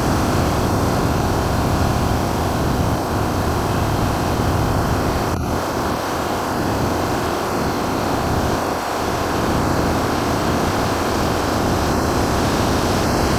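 Steady, loud rumbling and rushing noise, even throughout, with no distinct tapping or drumming standing out.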